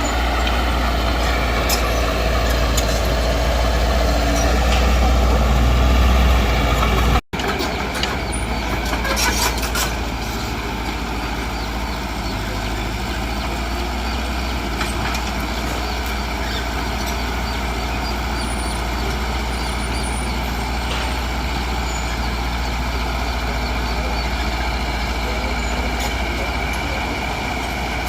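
Heavy diesel construction machinery running steadily under load, with a deep low rumble. A sudden brief dropout comes about seven seconds in, after which the engine carries on slightly quieter.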